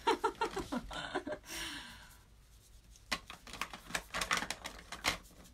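Colored pencil scratching on paper in quick back-and-forth strokes, a rapid run of scratchy ticks starting about three seconds in. A faint murmur of voice comes at the start.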